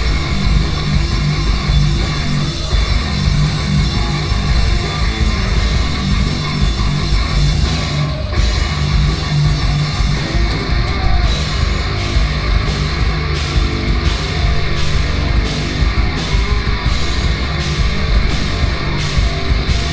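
Heavy metal band playing live: distorted electric guitars, bass and drum kit, loud and dense. In the second half the drums settle into sharp, even hits about twice a second.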